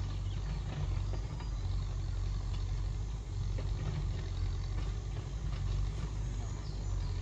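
Steady low engine hum, like a motor idling, with no change in pitch.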